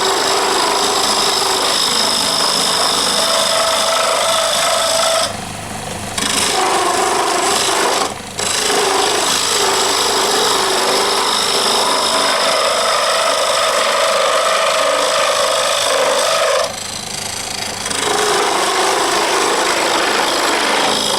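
Wood lathe running while a turning tool cuts a wooden knife handle: a loud, continuous scraping with a shifting whine over the machine's steady hum. The cutting breaks off briefly three times, around five, eight and seventeen seconds in, leaving only the hum.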